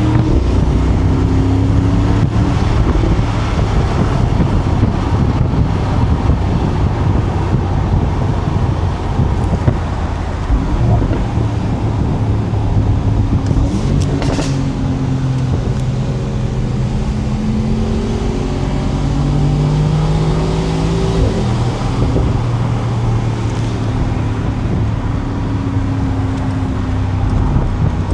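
Mercedes-AMG SL55's 4.0-litre twin-turbo V8 running under way, its pitch rising and falling with the throttle, over road and wind noise. There is one short sharp crack about halfway through.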